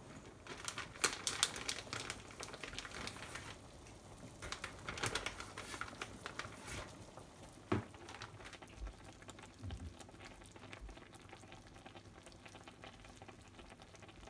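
Large pot of oden simmering on the stove, the broth bubbling and crackling, in dense bursts over the first seven seconds and fainter afterwards, with one sharp click near the middle.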